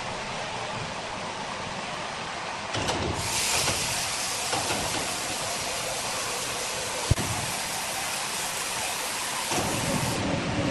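Heavy machinery running steadily, with a loud even hiss that starts about three seconds in and cuts off near the end, and one sharp click about seven seconds in.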